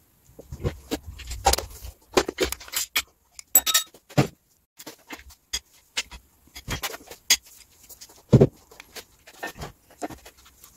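Socket wrench and steel engine parts clicking and clanking as the connecting-rod cap bolts are undone to strip the pistons from a bare engine block. A string of irregular metallic clicks and knocks, with the loudest clank late on.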